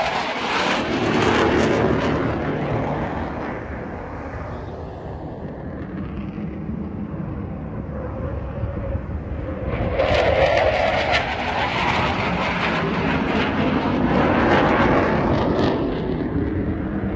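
Jet engine of an A-4 Skyhawk making low passes: a loud roar that swells and fades as the aircraft goes by. It is loudest at the start, dies down midway, then swells again about ten seconds in and once more around fifteen seconds.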